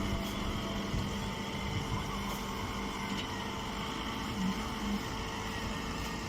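Steady hum of running machinery, with a low tone that fades out about five seconds in and a few faint knocks.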